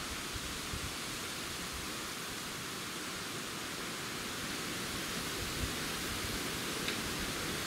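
A steady, even hiss, with a few faint low knocks now and then.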